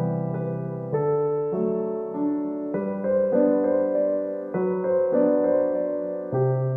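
Background music: a soft electric-piano or keyboard tune, with chords changing about once a second over a steady bass.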